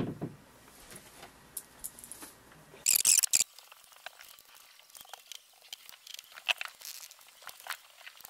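Faint scattered clicks and ticks, with a short loud burst of crackling rustle about three seconds in.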